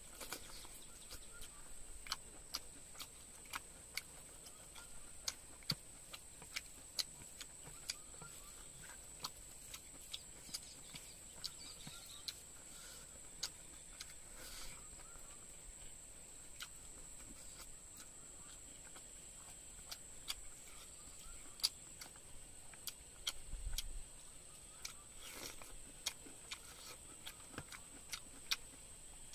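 Close-up eating sounds: chewing chicken and rice with many sharp, irregular mouth clicks and smacks, about one or two a second. A steady high-pitched whine runs underneath.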